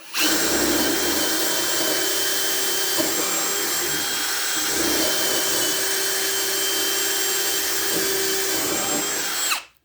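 Ryobi One+ HP hammer drill on speed 2 running steadily under load, drilling with a 1/4-inch bit. Its motor whines throughout and stops suddenly near the end.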